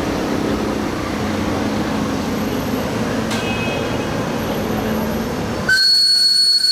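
Steady rumbling background with a hum, then near the end the whistle of a ride-on miniature live-steam locomotive starts suddenly: a loud, steady, high whistle of several pitches at once.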